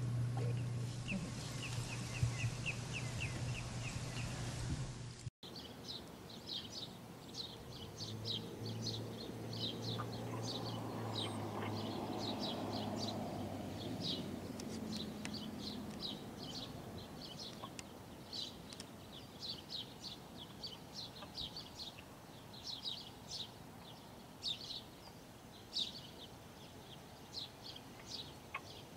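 Wild birds chirping: many short, high calls repeating densely throughout, with a faint low hum between about eight and sixteen seconds in. Before this, for the first five seconds, there is a steady low hum that cuts off suddenly.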